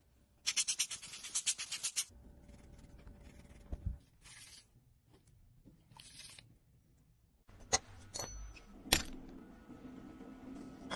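Small hand work on a watch: a rapid run of small clicks, then two short scraping bursts and a few sharp taps. A steady low hum comes in near the end.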